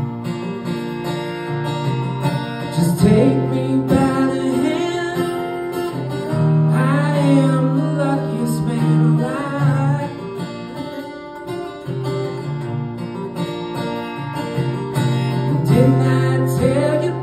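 Acoustic guitar strummed and picked, played live, with a man's voice singing over it in places.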